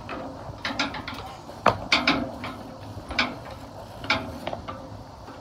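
Footsteps on a wooden ship's deck: irregular sharp clicks and knocks, the loudest a little under two seconds in.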